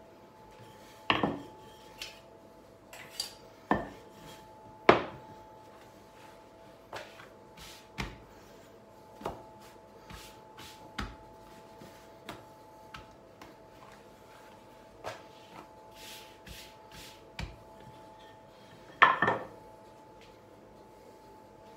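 Irregular knocks, taps and clatters on a kitchen countertop as hands press out and handle pizza dough, with a few louder knocks about a second in, about five seconds in and just after nineteen seconds. A faint steady two-note hum runs underneath.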